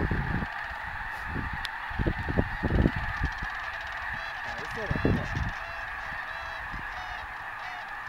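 A huge flock of snow geese calling in flight, a dense unbroken chorus of honking. Low gusts of wind noise hit the microphone near the start, about two to three seconds in and again about five seconds in.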